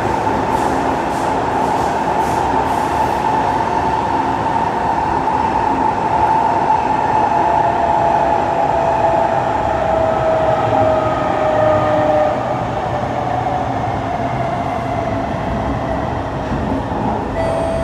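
Kawasaki C151 metro train running through an underground tunnel, heard from inside the car: a steady rumble of wheels on rail with a motor whine that falls in pitch from about six seconds in as the train slows.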